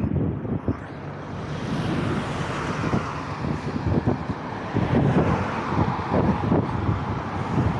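Wind buffeting the microphone of a camera riding on a moving bike, a steady rushing that swells in the second and third seconds, with road traffic passing the other way.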